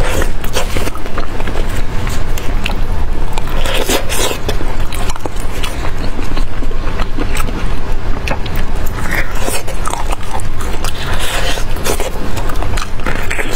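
Close-miked eating sounds: biting and chewing sauce-covered meat, with irregular wet smacks and clicks. Gloved fingers tear the meat apart, over a steady low rumble.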